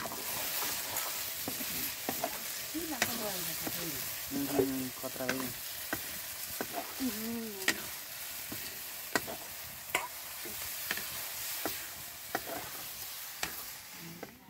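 Buffalo meat and blood sizzling steadily as they fry in a black wok, stirred with a long metal ladle that clicks and scrapes against the pan again and again.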